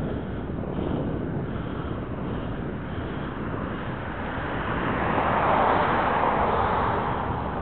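Wind rushing over the microphone of camera sunglasses while cycling, mixed with road noise. About five seconds in it swells louder for a couple of seconds as a car passes close by.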